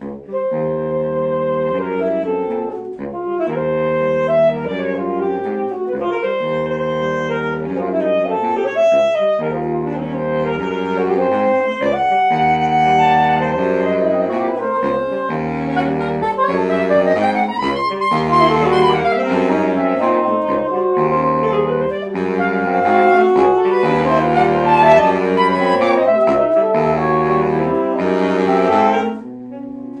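Saxophone quartet playing live: rhythmic chords and moving lines across low and high saxophones. The music drops off sharply about a second before the end.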